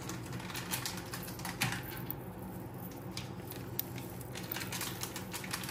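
Faint, irregular clicks and rustles of a Jadau Kundan choker being handled.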